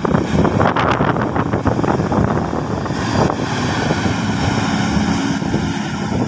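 Diesel engine of a Daewoo intercity bus passing close by, a steady engine drone.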